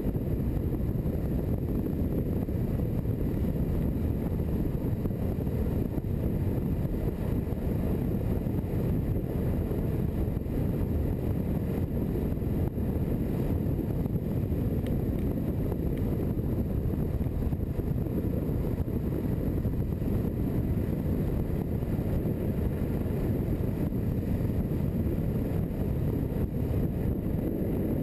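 Steady low rush of wind buffeting a board-mounted camera's microphone, mixed with the roll of longboard wheels on asphalt during a fast downhill tuck.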